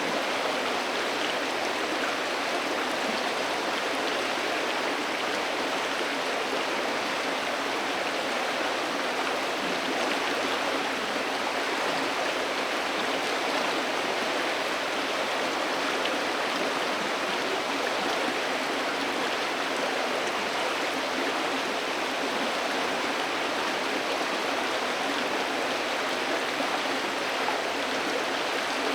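River water flowing: a steady, even rush of water.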